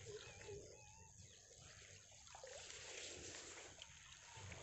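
Faint animal calls, a short low note repeated about three times a second, fade out about a second in. They give way to a soft, steady watery rustle as a fishing net is worked into the pond water.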